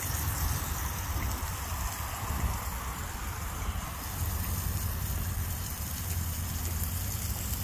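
Steady low rumble of road traffic, with a broad wash of passing-car noise swelling and fading in the middle.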